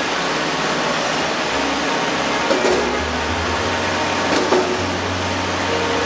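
Diesel concrete mixer pump running after its pumping is switched on: a loud, steady mechanical noise with a low hum and two knocks about two seconds apart.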